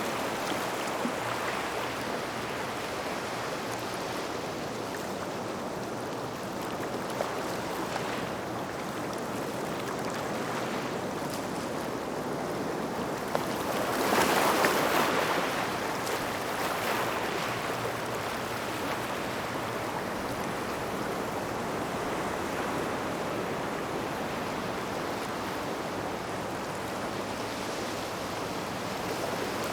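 Small waves washing on a gravel shoreline near rocks: a steady rush of water, with one bigger wave swelling louder about halfway through.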